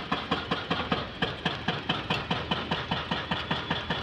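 Goods train's diesel locomotive engine working hard with a fast, even chugging beat, about six pulses a second.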